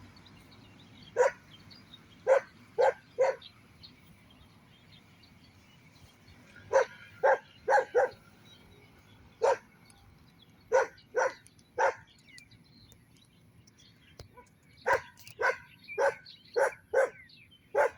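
A dog barking in short bouts, single sharp barks coming in clusters of three to six, about nineteen in all.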